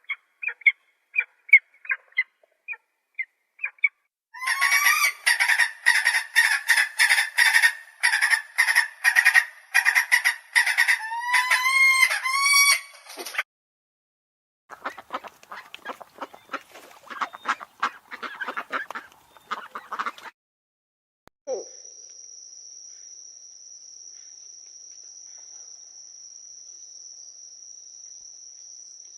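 A sequence of bird calls. First come a few short, high calls. Then a flock of geese honks densely for about nine seconds, followed by rapid harsh bird calls. From about two-thirds of the way in, a steady high insect trill, like crickets, runs on alone.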